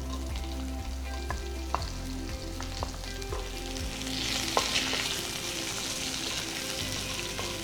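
Sliced onion frying in hot coconut oil, sizzling while a spoon stirs it, with a few clicks of the spoon against the pan. The sizzle grows louder about four seconds in.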